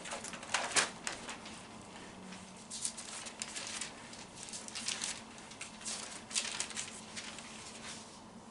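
Pages of a Bible being leafed through by hand: a string of short, irregular paper rustles and flicks.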